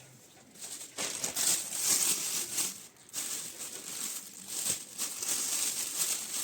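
Plastic bags crinkling and rustling as they are handled, in two stretches with a short pause about three seconds in.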